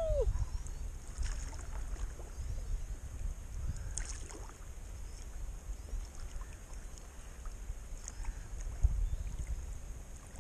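Paddling a kayak on calm river water: soft splashes and drips from the paddle over a low rumble, with a couple of light knocks about four and nine seconds in.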